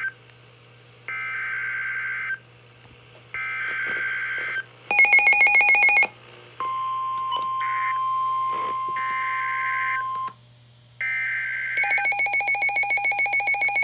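Emergency Alert System tones on NOAA Weather Radio: three short bursts of the warbling SAME header data, then a brief loud, rapidly pulsing electronic alarm. Next comes the steady 1050 Hz warning alarm tone with more data bursts over it, and near the end another data burst and a second rapidly pulsing alarm, signalling a new warning about to be read.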